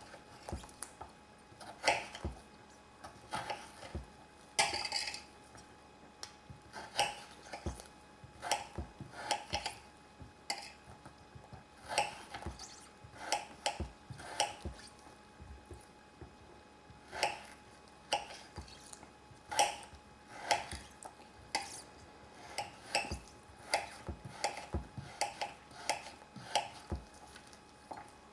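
Metal utensil clinking and tapping against a cooking pan in irregular knocks, about one a second, with a longer scrape about five seconds in, typical of stirring a pan of risotto.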